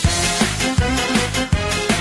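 Background music with a fast, steady beat and held notes over it.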